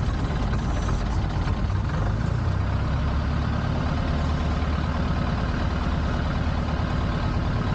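Piper L-4's four-cylinder Continental A-65 engine running steadily at low power with a deep, even hum.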